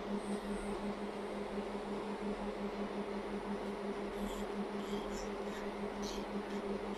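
A small electric motor of nail-care equipment hums steadily at one pitch with a faint regular pulse. A few light, high scratches come about four to six seconds in, as the e-file bit starts working the acrylic corkscrew nail.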